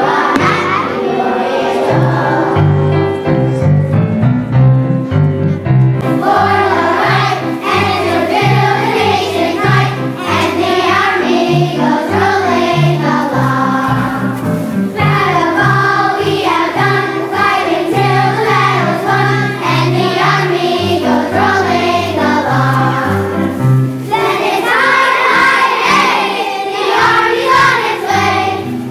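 A group of children singing a song together over instrumental accompaniment with a steady stepping bass line.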